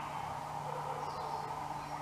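Faint, distant bird calls over a steady low background hum.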